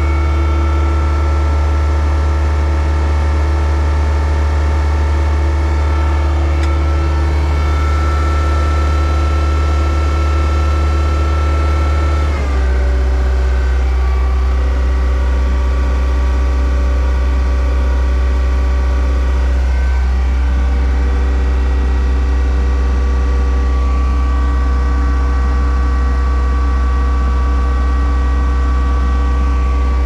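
Thomas 243 S Series skid steer's diesel engine running steadily, heard from inside the open cab. About twelve seconds in, the pitch steps down slightly.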